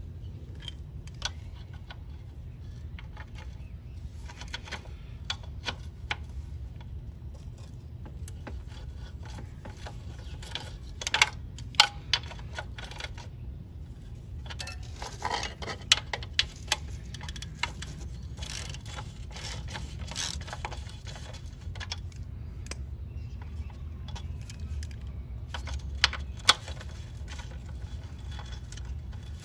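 Metal tools clinking and tapping against the front axle of a 1968 Honda CT90 as a socket on an extension is worked against it to drive the axle out of the fork. Scattered light clicks, with a few sharper metallic knocks, mostly in pairs, about a third of the way in, near the middle and near the end.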